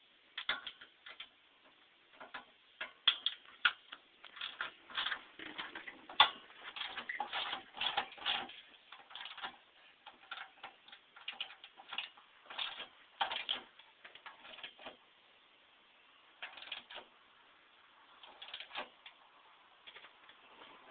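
Socket ratchet clicking in quick, irregular runs of strokes with short pauses, as bolts are tightened; the clicking thins out to a few scattered clicks in the last few seconds.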